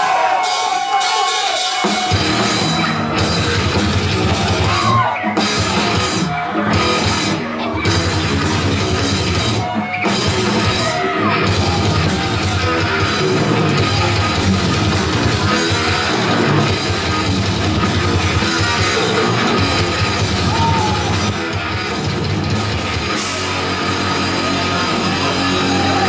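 Live rock band playing loud, heavy music on drum kit and electric guitars. The full band comes in about two seconds in, with a few short breaks in the playing soon after.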